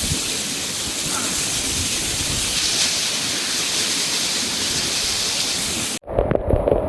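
Waterfall rushing heavily up close, a dense steady roar of falling water. It cuts off suddenly about six seconds in, giving way to scattered knocks.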